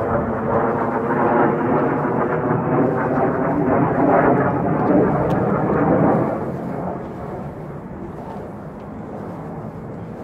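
A loud engine drone, a dense steady hum of many close tones, passing by: it builds to a peak about four to six seconds in, then fades to a lower level.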